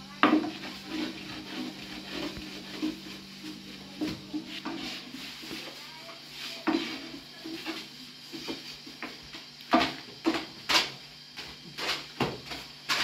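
Long thin wooden rolling pin working flatbread dough on a round wooden board: rolling rubs and irregular wooden knocks and clacks, several of them sharp, thickest in the second half.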